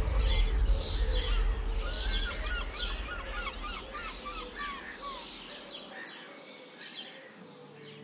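Small birds calling, with repeated sharp chirps and, a couple of seconds in, a quick run of about eight chirps. Music underneath fades out by about halfway.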